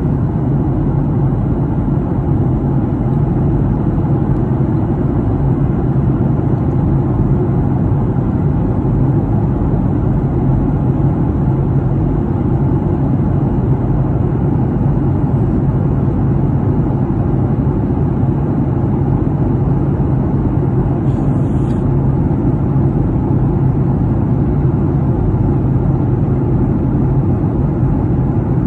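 Airliner cabin noise in cruise flight: the steady, deep, unbroken sound of the jet engines and the air rushing past the fuselage, heard from inside the cabin by the window.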